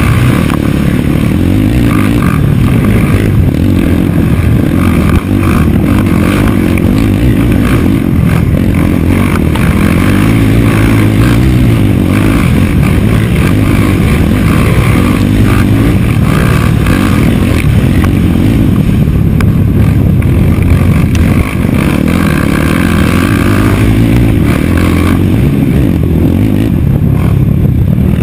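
Off-road racing engine running hard at race pace, its revs rising and falling as the rider accelerates and backs off around the dirt track, heard up close from an onboard camera.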